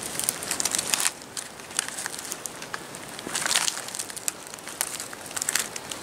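Dry leaf litter on the forest floor rustling and crackling in irregular bursts of small clicks, densest in the first second.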